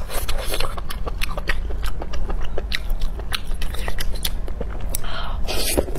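Close-miked eating of crunchy food: bites and chewing that give many sharp, irregular crunches, several a second, with a short softer rustling near the end.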